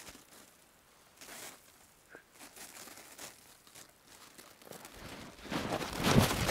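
Footsteps crunching in snow: faint, scattered crunches at first, then much louder and quicker crunching from about five seconds in.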